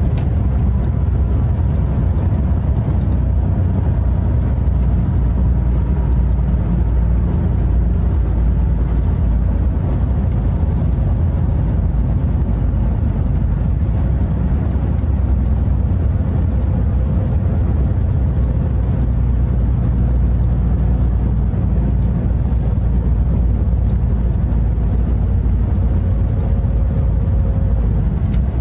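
Scania R580 truck's V8 diesel engine running under way, heard from inside the cab as a steady low drone mixed with road noise.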